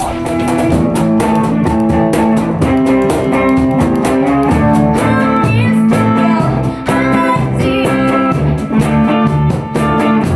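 A band playing: guitar and bass over a steady beat, with a voice singing in places. The music starts abruptly.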